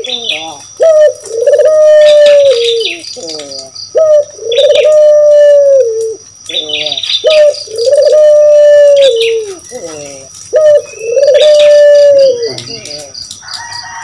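Barbary dove (puter) cooing over and over: four long drawn-out coos, each about two seconds and dropping in pitch at the end, each led in by a quick run of short stuttering notes.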